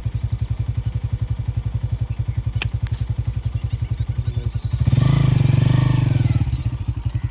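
A small engine runs with a steady rapid thudding. About two and a half seconds in there is a single sharp crack, an air gun shot that misses. Around five seconds in the engine sound swells louder for about a second and a half.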